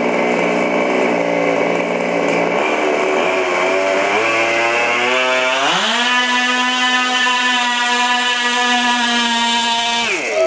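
Small gas engine of a radio-controlled pulling vehicle revving. Its pitch climbs over a few seconds, then jumps to a steady high speed about six seconds in and holds there for about four seconds before dropping off sharply near the end.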